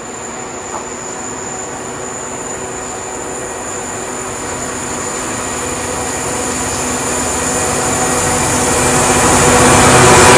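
Class 66 diesel-electric locomotive's two-stroke EMD V12 engine howling as it works hard hauling a loaded ballast train, growing steadily louder as it approaches.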